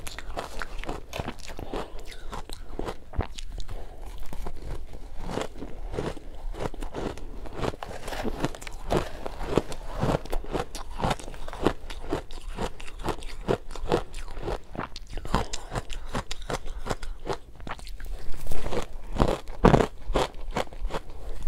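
Close-up crunching and chewing of powdery ice coated in matcha powder, rapid crackling bites without pause, with a spoon scraping through the ice in a glass dish. The bites grow louder near the end.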